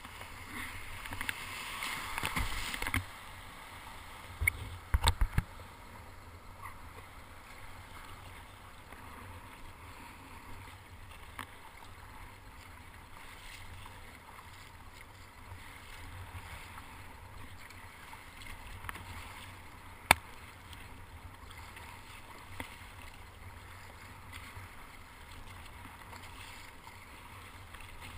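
Kayak paddling on choppy sea: paddle blades dipping and splashing, with water washing against the plastic sit-on-top hull. There is a louder splash in the first few seconds, a quick cluster of sharp knocks about five seconds in, and a single sharp click about twenty seconds in.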